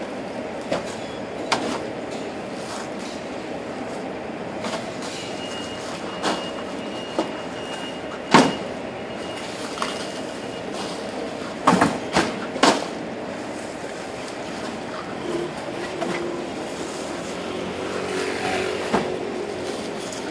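Scattered knocks and clatters over a steady background noise as rubbish bags are pulled from a wire roll-cage trolley and dropped onto and beside large plastic wheelie bins. The loudest knock comes about eight seconds in, followed by a quick cluster of three around twelve seconds.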